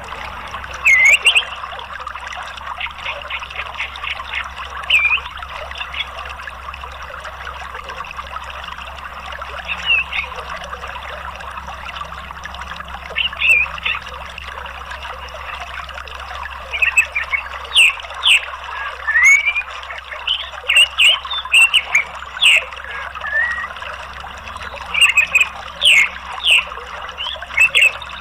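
Steady flowing water of a stream or small waterfall. Short high bird chirps and quick rising whistles are scattered over it, a few at first and coming thick and fast in the second half.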